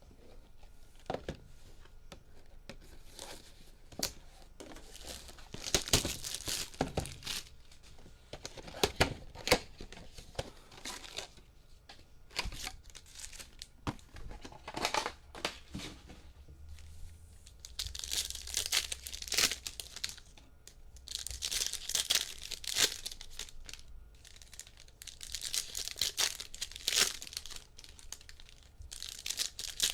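Trading-card pack wrappers being torn open and crinkled by hand, in irregular bursts of crackling with sharp clicks between them as the packs and cards are handled.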